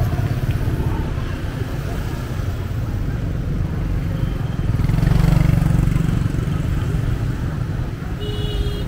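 Street traffic of motorbikes and motorbike tuk-tuks passing close by, their small engines running as a steady low rumble that swells louder about five seconds in. A brief high-pitched tone sounds near the end.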